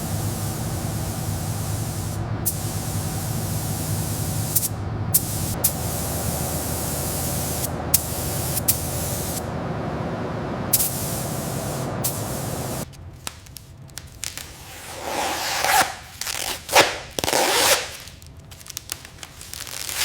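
Steady spraying hiss of compressed air for about thirteen seconds, with a few brief breaks. After that come several short bursts of spray.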